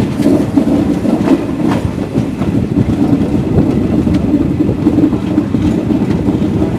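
Passenger express train running on the line, heard from on board: a steady heavy rumble with the wheels clacking now and then over rail joints.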